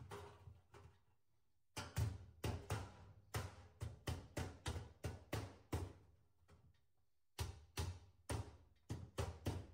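Metal hammer striking the galvanized sheet-metal seams of a duct transition to close them up while the fitting is assembled. The blows come in two runs, about three a second, with a pause of about a second and a half between the runs.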